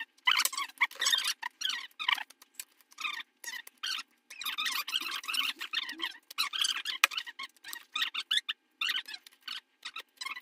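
A hand tool scraping and cutting the plastic heel protector of a ski boot, trimming off its protruding edges: irregular short squeaky scraping strokes mixed with clicks.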